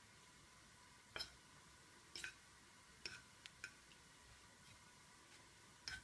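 A fork mixing grated cheese into hot mashed potato on a plate, with a handful of faint, irregular clicks of the fork against the plate.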